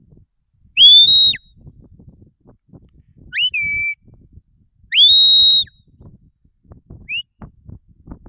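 Shepherd's whistled commands to a working sheepdog: three sharp whistles, each rising quickly to a held note, the middle one dropping to a lower held note, then a short rising chirp near the end.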